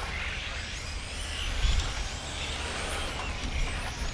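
Electric radio-controlled touring cars, Xray T4 class, whining faintly as they race around an asphalt track, with a low rumble underneath that swells briefly about one and a half seconds in.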